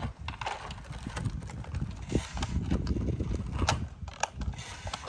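Toy RC car's small electric motor and plastic gearbox whirring and rattling in stop-start bursts as its wheels spin in loose sand, the car stuck and barely moving.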